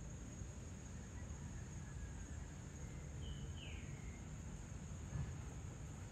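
Faint evening outdoor ambience: a steady high insect drone over a low rumble. About three seconds in, a bird gives a brief call, a high note followed by a falling one.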